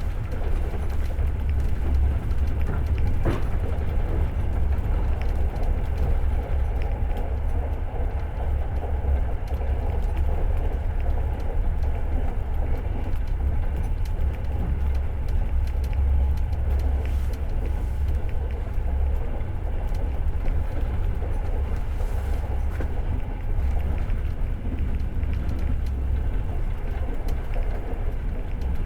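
Passenger train running at speed, heard from inside the carriage: a steady low rumble of wheels on rails and the carriage's running noise, with a short sharp click about three seconds in.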